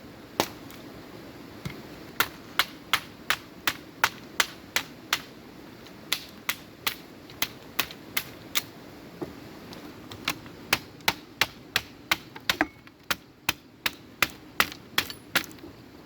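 A tool striking bamboo in sharp knocks about two a second, in runs with short pauses about five seconds in and again around nine seconds in.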